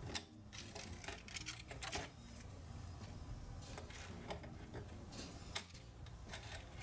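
Faint, scattered scrapes and light taps of a thin stick worked against the wood and the metal conduit tube where it sits in a hole in a pine board, over a low steady hum.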